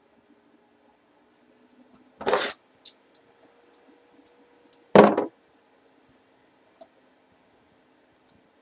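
Two dice clicking together as they are shaken in a hand, a handful of small ticks, then thrown down onto a cardboard box lid with a loud clatter about five seconds in. A first loud knock comes about two seconds in as they are picked up off the box.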